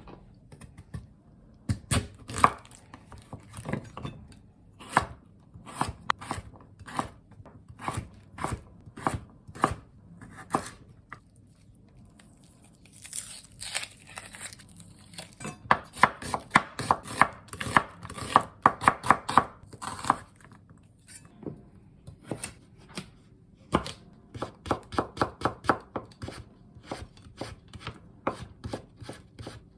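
Kitchen knife chopping food on a cutting board: uneven strokes at first, then quick runs of about five strikes a second in the second half, with a short rustle partway through.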